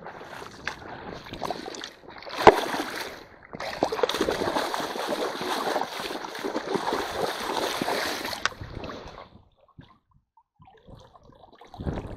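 Shallow stream water splashing and churning around a hand net, with a sharp knock about two and a half seconds in. A long stretch of sloshing runs to about nine seconds, then briefly goes nearly quiet before splashing starts again near the end.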